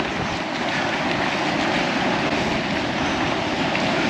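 Steady rushing wind buffeting the microphone, with low gusty rumbling.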